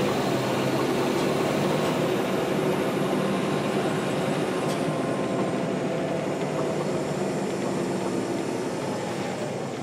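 Caterpillar C-13 ACERT diesel engine of a NABI 416.15 transit bus running at a steady pitch, easing slightly quieter toward the end.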